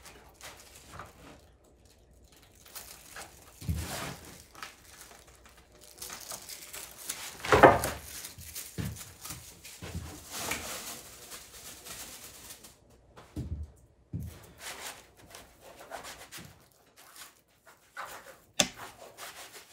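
Crinkling and rustling of a mylar sheet and stiff cardboard being handled at a bench, with hands rubbing the mylar flat onto a cardboard panel near the end. The crinkling is densest and loudest in the middle, with one sharp crackle about a third of the way in.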